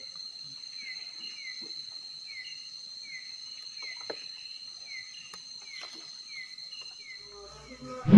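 Night insects: a steady high-pitched cricket trill, with short falling chirps repeating about once or twice a second and a few faint clicks of handling. It ends in a sudden loud thump.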